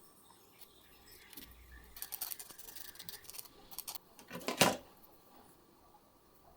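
Paper clip wire handled on the bench: light metallic rattling and clicking from about two seconds in, then one louder clack about four and a half seconds in.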